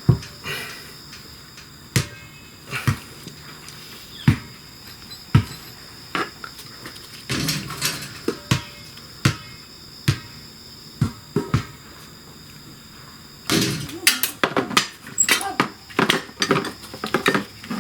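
Metal tools and motorcycle parts knocking and clinking during hand work on a shift lever: separate sharp knocks every second or so, then a stretch of quick, busy clattering from about two-thirds of the way through.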